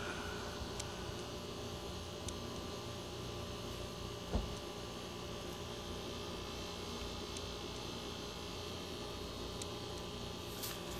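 A steady low hum under a faint hiss, with one soft thump about four seconds in.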